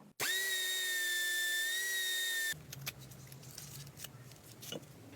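Small electric drill spinning with a steady high whine for about two seconds, then cutting off suddenly; faint light taps of metal parts follow.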